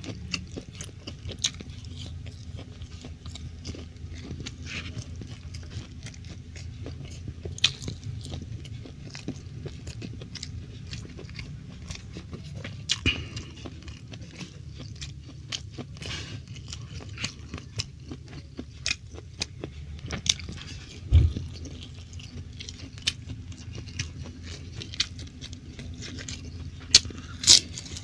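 Close-miked chewing and biting of stir-fried beef with rice: wet smacks and small clicks over a steady low hum, with one low thump about three-quarters of the way through.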